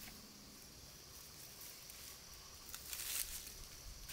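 Faint steady chirring of insects, with a brief rustling scrape about three seconds in as the nylon strap of a trail camera is pulled around a tree trunk.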